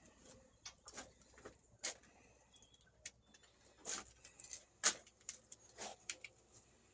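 Scattered, irregular clicks and light knocks of hard objects, a dozen or so, the loudest about two, four and five seconds in.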